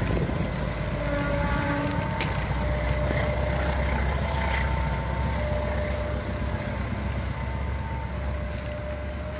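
Low rumble of a passenger train running over a railway bridge, slowly fading as the last carriage moves away. The speaker calls it a rather scary rumble that goes away once the train has passed.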